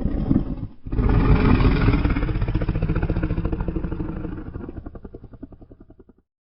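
Anchiceratops dinosaur sound effect: the end of one low call, then about a second in a long, low growling bellow. It fades away into slowing pulses, a rattle, and stops just after six seconds.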